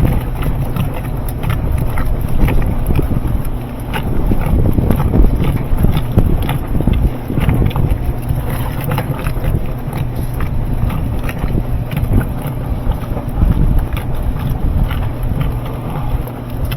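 A machine running with a steady low hum under frequent irregular clicks and knocks.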